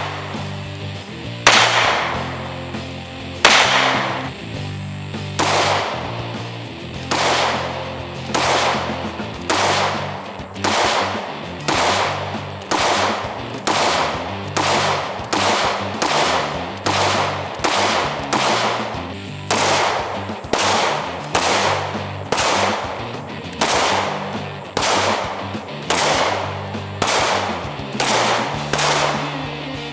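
Semi-automatic pistol shots fired in a steady string, one to two a second, each with a short ringing tail. A music track with a bass line plays under them.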